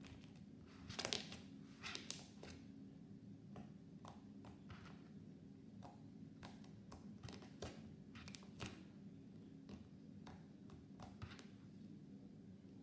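Fluffy slime being stretched, folded and pressed by hand: faint, irregular soft pops and clicks, the loudest about one and two seconds in, over a low steady hum.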